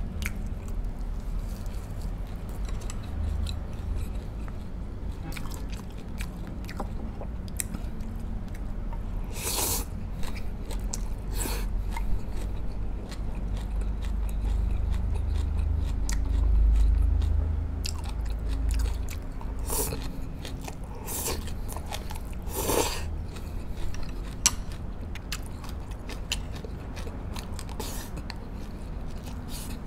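Close-up chewing of pork spare ribs braised in coconut water, with several sharp crunches or clicks scattered through.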